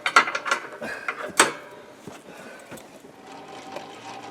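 Side-by-side's plow winch in free spool, its drum and gears turning with a quick run of sharp clicks as the rope is pulled out by hand. The clicking stops about a second and a half in, leaving only faint scattered ticks.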